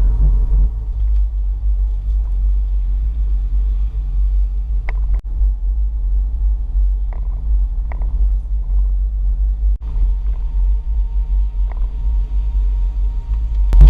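RV engine running under load on a steep mountain climb, heard as a steady low rumble with road noise, with a few light clicks.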